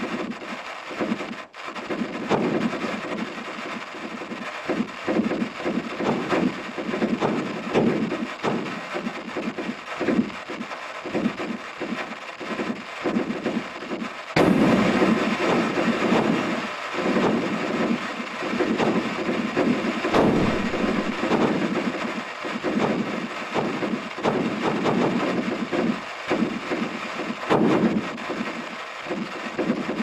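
Sonified seismometer recordings of seven years of California earthquakes, sped up into hearing range: a continuous crackling rumble dotted with many sharp pops. Each pop is an earthquake. It turns abruptly louder about halfway through, as the largest quake, magnitude 6.6, appears.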